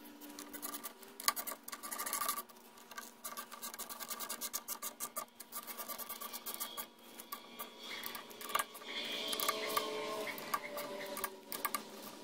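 Socket-wrench ratchet clicking in quick runs as the water pump housing screws are tightened down on an outboard lower unit.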